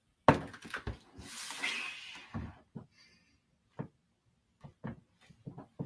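A paper journal being handled and turned on a wooden table: a knock as it is moved, about a second of paper rustling and sliding, then a few light taps and knocks.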